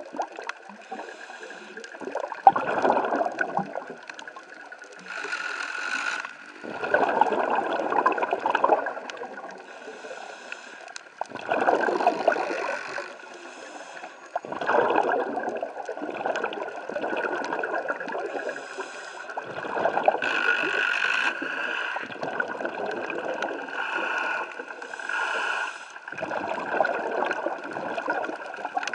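Muffled underwater rushing picked up by a camera below the surface: swells of noise come every three to five seconds, each lasting a second or two, over a faint steady high hum.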